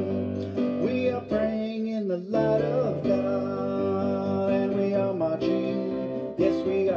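A worship song played on an electronic keyboard, with a man singing along into a microphone.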